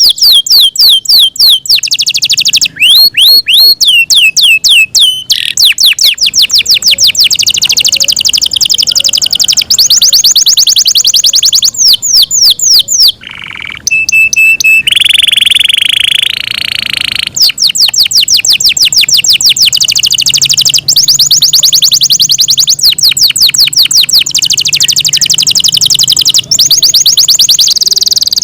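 Yorkshire canary singing a long song of fast trills, rapid runs of repeated high notes. About halfway through it breaks off briefly, then gives a harsh buzzing note lasting a couple of seconds before the trills resume.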